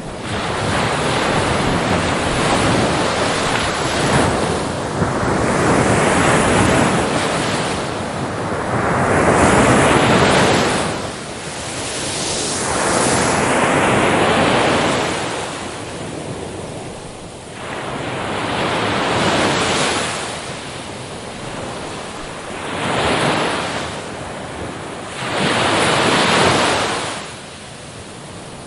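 Big ocean waves breaking and crashing on a shore, the surf swelling into a loud surge and falling back again every few seconds.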